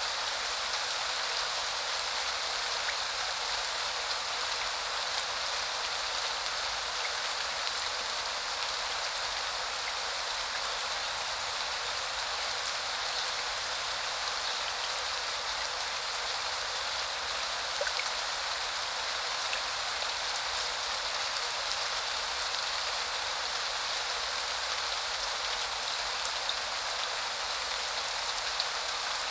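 Steady spring rain: an even hiss of many drops striking a surface, with scattered single drop ticks standing out from it.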